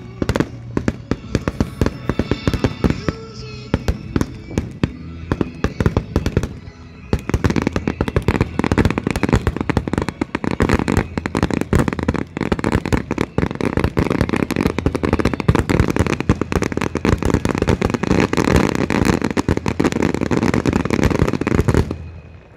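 Fireworks display finale: a rapid string of shell bursts and bangs that thickens about seven seconds in into a dense, continuous barrage, then stops abruptly near the end.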